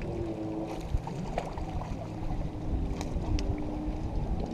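Steady motor hum from a boat on the water over a low rumble of wind and waves, with a few sharp clicks.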